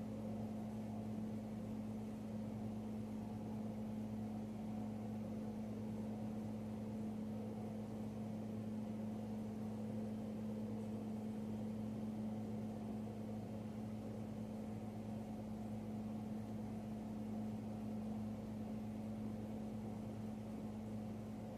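Steady low mechanical hum holding two constant pitches, unchanging throughout.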